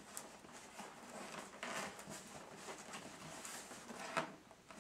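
Fingernails picking and scratching at the top seam of a cardboard shipping box: faint, scattered scratches and rustles.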